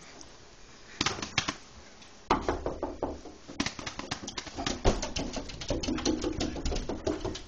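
Cocker spaniel's claws clicking and scrabbling rapidly on a hard floor as it dashes about, in quick irregular bursts starting about a second in and getting busier after about two seconds.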